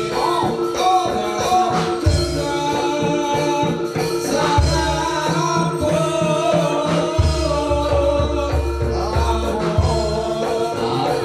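Live jaranan gamelan accompaniment: drums and sustained metallic tones under a high, wavering melody sung or played. Deep booming strokes land every couple of seconds and ring on.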